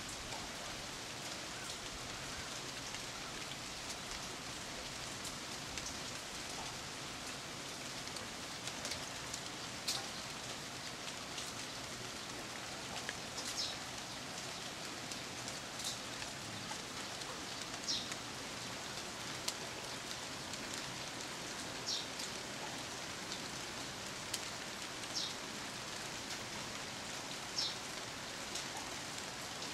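Steady rain falling on ginkgo leaves, an even hiss. From about a third of the way in, a short high-pitched tick cuts through it every two seconds or so.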